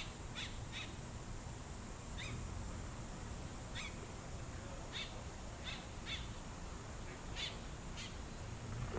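Small birds chirping: a dozen or so short, separate calls at irregular intervals over a low background rumble.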